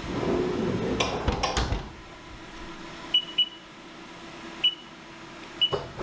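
Sliding enclosure door of a CNC mill rolled shut, with a few sharp clunks as it closes in the first two seconds, then four short beeps from the machine's control keypad.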